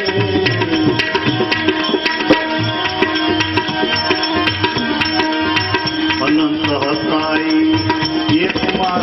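Instrumental interlude of a devotional bhajan: hand drums keep a steady, even rhythm under a held melody tone and a few melodic phrases, without singing.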